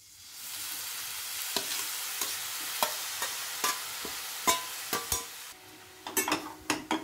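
Grated amla (Indian gooseberry) sizzling as it drops into hot ghee in a stainless steel pan, with sharp clinks of a steel spatula against the bowl and pan. The sizzle dies down near the end, leaving a few clinks.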